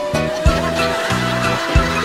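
Background music with a steady beat and a pulsing bass line.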